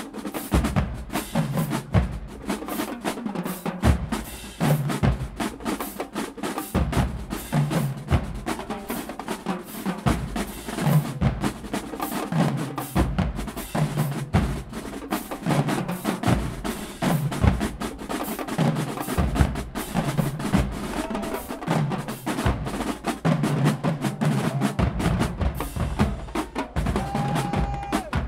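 Marching band drumline playing a cadence: rapid snare drum strokes and rolls over a repeating pattern of pitched bass drum hits.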